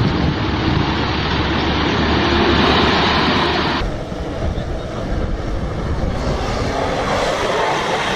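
Loud, steady vehicle engine and road noise that cuts off abruptly about four seconds in. It gives way to a quieter tank engine running as the tank drives through mud.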